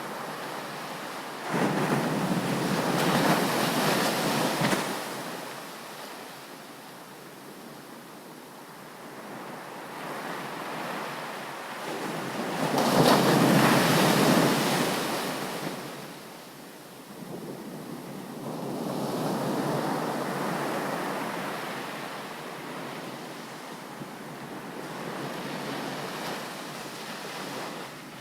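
Ocean waves breaking on a beach: about four surges of surf that swell and wash out, the loudest about halfway through.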